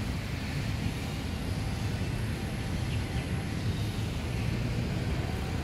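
Steady low rumble of distant city traffic, with a faint even hiss above it.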